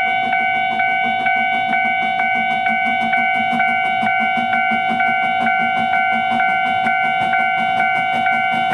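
Japanese railroad crossing warning alarm (Daido Signal-licensed) ringing steadily: a repeating two-note electronic clang about twice a second over a held tone, signalling that a train is approaching.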